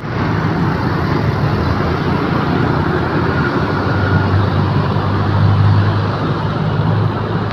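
Busy road traffic passing close by: scooters, motorcycles and cars running past in a steady wash of engine and tyre noise, with a low engine hum that swells a little about five to six seconds in.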